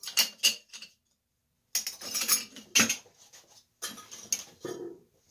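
Metal hand tools, pliers among them, clinking and clattering against metal in several short bursts, with a dead gap of about a second near the start.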